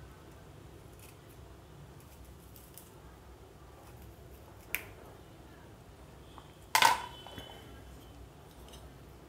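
Quiet handling of a pear half on a cutting board, a small click about halfway, then a sharp clack with a brief metallic ring as a kitchen knife is set down on the wooden cutting board.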